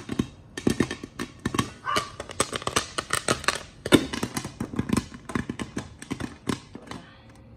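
Popcorn kernels popping rapidly in a covered pot, many irregular pops a second, thinning out and stopping near the end as the batch finishes.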